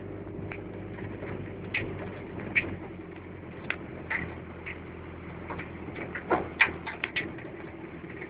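Engine of a moving vehicle running steadily, with short high ticks scattered on top and several close together about six to seven seconds in.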